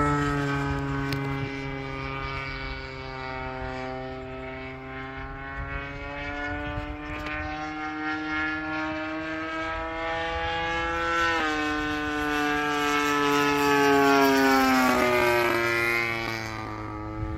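Engine and propeller of a Factor 3D radio-controlled aerobatic model airplane in flight. It is a steady drone whose pitch creeps up, drops suddenly about eleven seconds in, then swings up and down as the plane passes, loudest a couple of seconds later.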